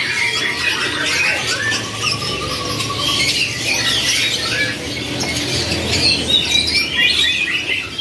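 Many caged canaries chirping and calling at once: a dense, unbroken tangle of short, high chirps and trills, over a low steady hum.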